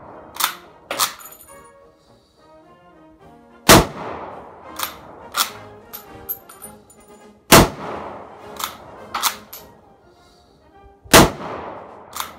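A Mannlicher M1895/30 Stutzen straight-pull rifle firing 1938 German-marked 8x56mmR rounds: three loud shots about four seconds apart, each with a long echoing tail. After each shot come two sharp metallic clacks, some with a high ring, as the straight-pull bolt is cycled.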